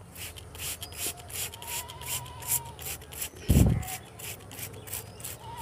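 Sponge scrubbing back and forth on a plastic car door trim panel in quick rasping strokes, about four a second. A dull thump about three and a half seconds in.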